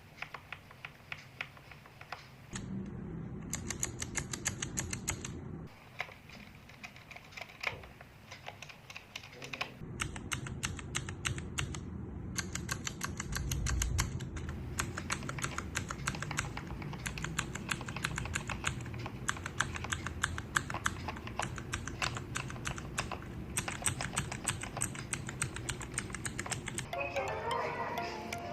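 Typing on mechanical keyboards, comparing linear switches with clicky switches. The linear switches give soft, muted keystrokes. The clicky switches give loud, sharp clicks. The two sets alternate, with the clicky typing taking over for most of the second half. Faint music plays under parts of it.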